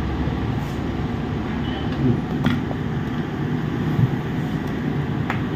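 Steady low background rumble, with two faint clicks about two and a half and five seconds in.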